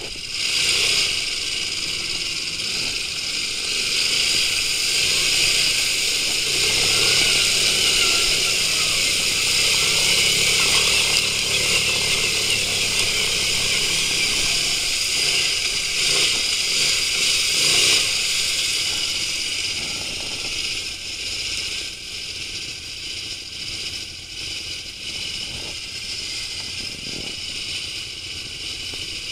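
Quad bike (ATV) engine running under throttle as it is ridden through a shallow stream and along a muddy trail, with a steady hiss of water, tyres and wind over it. Loudest in the middle, easing off over the last ten seconds or so.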